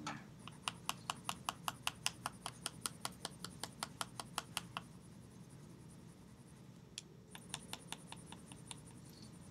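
Pencil lead making quick short shading strokes on paper: a run of dry ticks, about five a second, for several seconds, a pause, then a second shorter run near the end.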